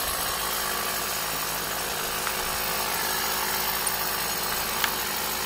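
Steady machine hum of a running motor, even and unchanging, with a single faint click about five seconds in.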